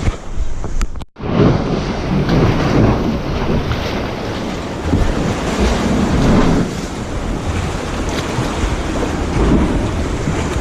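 Lake waves sloshing and wind buffeting the microphone, a steady rushing noise with a split-second dropout about a second in.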